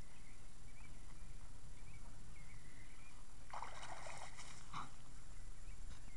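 Water splashing as a dog leaps out of a plastic kiddie pool, a burst of about a second a little past halfway, followed by a shorter splash.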